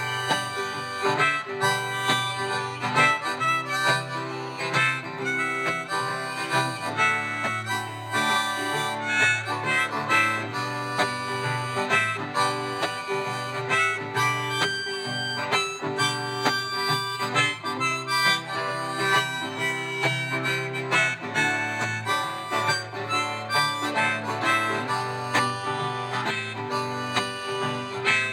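Harmonica solo over strummed acoustic guitar: an instrumental break in a country-folk song.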